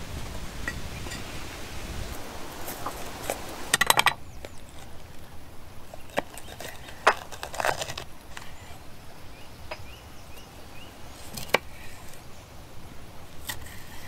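Kitchen knife cutting a green pepper on a wooden board: scattered sharp knocks as the blade goes through the pepper onto the wood, with a quick run of clicks about four seconds in.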